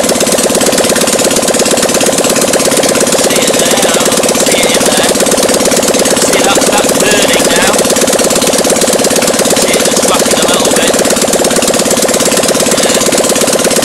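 Fiat 126's 652cc air-cooled two-cylinder engine, bare of its cooling cowling, running steadily and loud, firing evenly on both cylinders.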